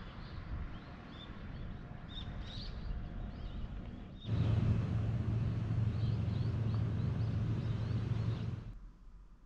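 Outdoor ambience with small birds chirping repeatedly over a steady background rumble; about four seconds in the rumble jumps louder with a low steady hum, and it drops away again near the end.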